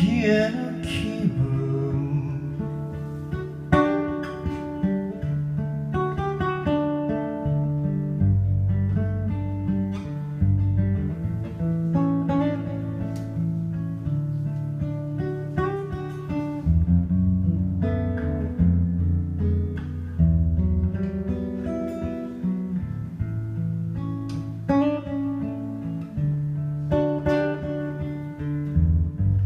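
Acoustic guitar played solo: an instrumental passage of plucked notes and chords over a moving bass line, with a sharp chord attack every few seconds.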